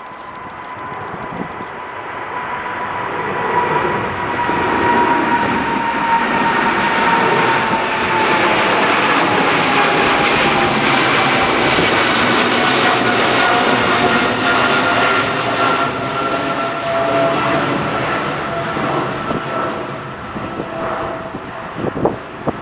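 Boeing 777-200LR's twin GE90 turbofan engines at climb-out power as the airliner passes overhead after takeoff: a loud, steady jet rumble that builds over the first few seconds, with a high whine that slowly falls in pitch as the aircraft goes by.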